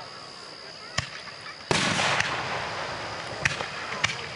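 Aerial fireworks exploding: a single sharp bang about a second in, then a loud burst just under two seconds in, followed by a dense run of crackling pops that slowly fades, with a few louder pops near the end.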